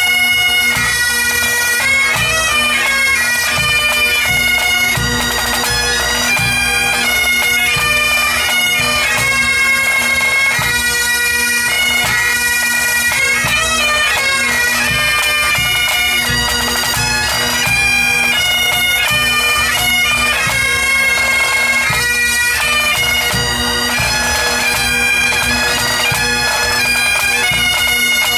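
Bagpipes playing a continuous tune over their steady drones.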